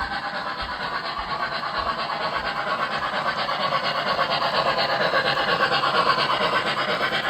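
Steady, rapidly pulsing rasping noise, growing slightly louder, like a small mechanism running or something being rubbed.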